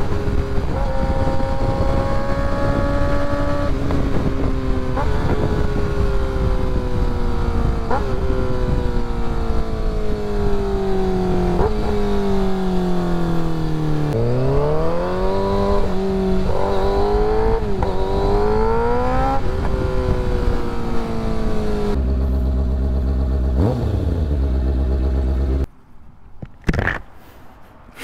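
Kawasaki ZX-6R's inline-four engine riding under way, its pitch stepping with gear changes, then falling and rising again as the bike slows through the gears. It settles to a steady idle about 22 s in and is switched off about 26 s in, followed by a few light knocks.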